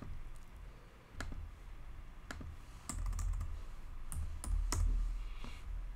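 Computer keyboard being typed on: about ten separate keystrokes, including the Enter key pressed several times, some with a dull thump.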